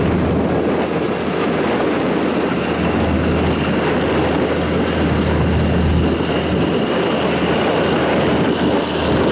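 Superdong IX high-speed passenger ferry's engines droning steadily as it passes close by, a deep hum under a broad rumble, with a faint high whine on top.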